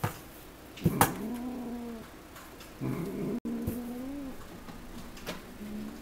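Cat growling twice, each a long low growl of about a second, with a few sharp knocks around the first. It is the warning growl of an adult cat whose tail a kitten is grabbing and batting.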